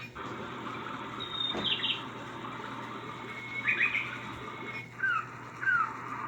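Recorded birdsong playing from a white-noise sound machine's speaker over a steady hiss. About five seconds in the sound cuts briefly and a different bird call starts, a short falling chirp repeated about twice a second.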